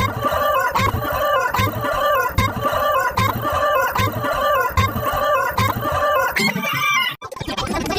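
Chicken sound effect: clucking calls repeated in a steady pattern, a little more than one a second, cutting off suddenly about seven seconds in.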